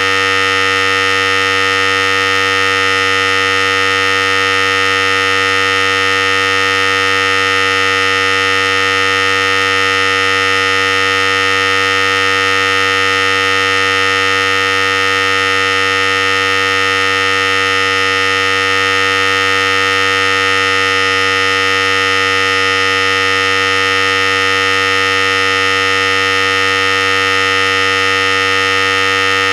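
Philips Series 5000 hair clipper running continuously, a steady, unchanging electric buzz.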